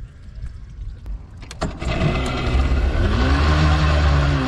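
A few sharp clicks, then a Mariner outboard motor comes up to speed about two seconds in, running loudly with a deep hum. Its pitch rises and then eases back down.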